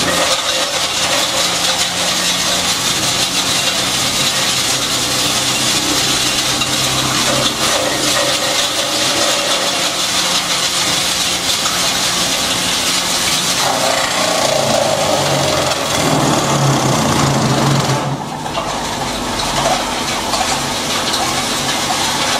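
Multi-functional crusher, belt-driven by an electric motor, running and grinding up tree branches fed into its chute: a steady low hum under loud, dense grinding noise. The grinding lightens about eighteen seconds in.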